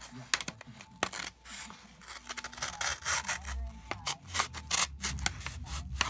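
Gerber Dime mini multi-tool's small knife blade slicing through a sheet of paper: a run of crisp crackling paper-cutting sounds with rustling as the sheet is handled.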